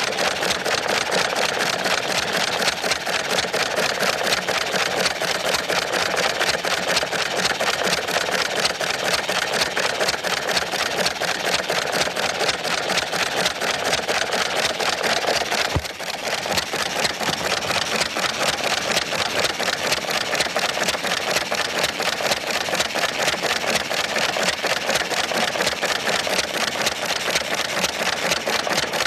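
Old hit-and-miss stationary gas engine running, with a fast, steady mechanical clatter.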